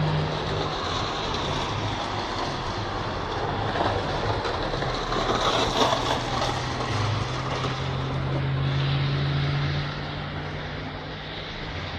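Heavy road-repair machinery running: a steady engine hum under dense mechanical noise, briefly louder around the middle.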